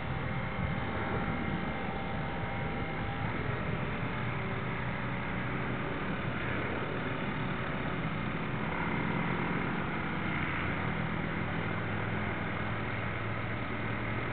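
Drive motor of a radio-controlled model destroyer running steadily as the model cruises, heard from on board, with water rushing along its hull and a faint steady hum through the noise.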